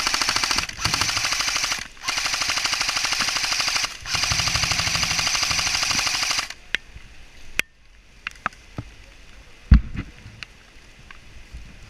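Airsoft gun firing on full auto in four long bursts, a rapid even rattle, for the first six and a half seconds; after that come scattered sharp ticks and one loud thump near the end.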